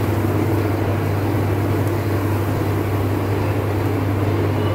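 Steady low machine hum with a hiss over it, unchanging throughout.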